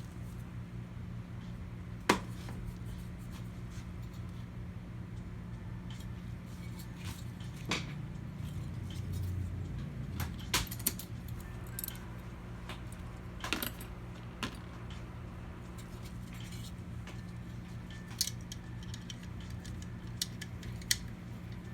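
Scattered light metallic clicks and clinks of small parts and tools being handled during PC assembly, the sharpest about two seconds in, over a steady low hum.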